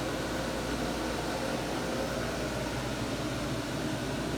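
Boat's cabin air conditioning running: a steady, even blowing hum with a low drone under it.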